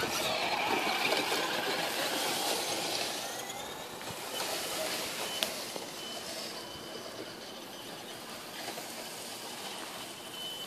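Radio-controlled scale crawlers driving over leaf litter: the electric motors and gear drives whine, rising and falling in pitch, over a rustling crunch from the tyres. The whine is loudest in the first few seconds, as a truck passes close, and then fades as the trucks move away, with a faint steady high tone in the second half.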